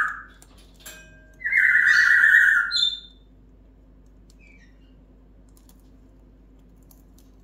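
Timneh African grey parrot giving loud, flat whistled squawks: one just ending as the sound begins, then a second about a second and a half in that lasts about a second and a half and closes with a short higher chirp. After that only faint scattered clicks as the parrot nibbles at something in its beak.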